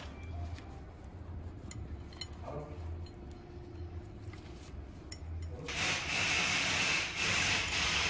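Faint metallic clicks of a timing chain's links being handled, then a loud steady hiss starting near the end and lasting about two and a half seconds, with a brief dip midway.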